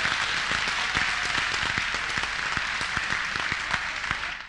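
A large audience applauding: dense, steady clapping that cuts off abruptly at the end.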